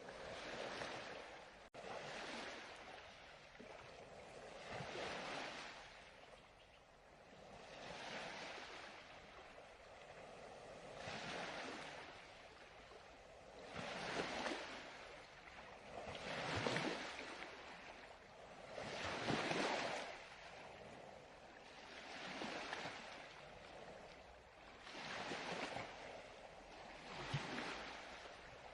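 Recorded ocean surf: waves wash in and draw back in soft, rolling swells, one about every two and a half to three seconds.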